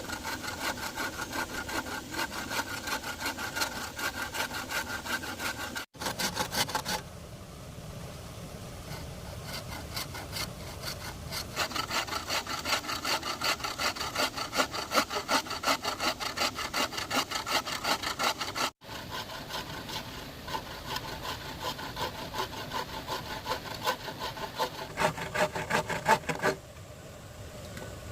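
Hand saw cutting bamboo in quick, even back-and-forth strokes, in several stretches that break off abruptly.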